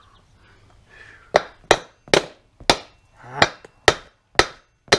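Heavy hammer striking metal, about eight blows roughly two a second starting about a second in, each with a brief metallic ring: pounding on a rusted-on wheel hub to drive it off the brush cutter's axle.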